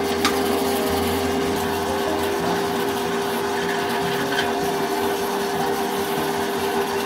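A machine motor runs steadily with a constant hum, while a metal straightedge is scraped across damp sand-cement screed mortar, with a few light knocks.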